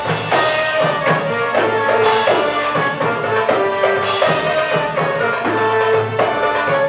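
Live Arabic music from a band with keyboards, a melody line over a steady percussion rhythm.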